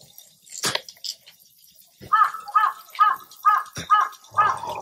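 A single sharp strike just under a second in, then an animal calling six times in quick succession, about two short pitched calls a second.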